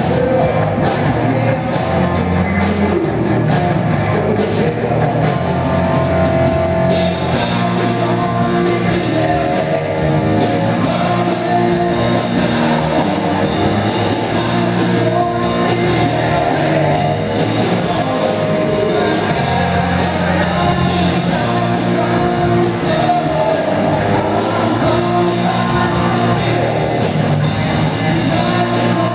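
A live rock band playing: electric guitars and a drum kit, with a voice singing over them.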